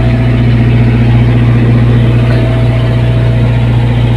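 Fishing boat's engine running steadily under way, a loud, even low drone.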